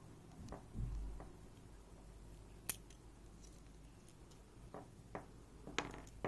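Faint, scattered small metallic clicks and taps of the tiny driver pins and springs from a disassembled DOM iX Saturn lock being handled and set down one by one, with a soft low bump about a second in and a quick run of clicks near the end.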